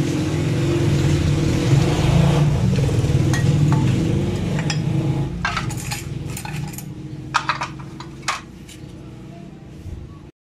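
Liquid poured from a bottle splashing into a metal pan while clutch parts are washed in it, then metal clutch parts clinking against the pan several times, over a steady low hum.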